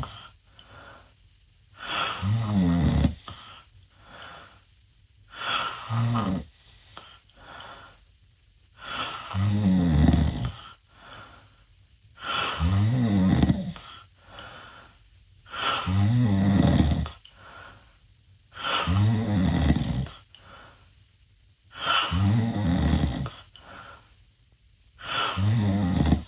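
A teenage boy snoring loudly with his mouth open: a long, pitched snore on each in-breath about every three seconds, eight in all. A quieter out-breath falls between the snores.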